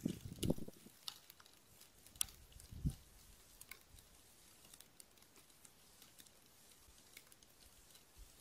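Quiet outdoor ambience with scattered faint ticks and clicks. A few low thumps come in the first second and once more about three seconds in.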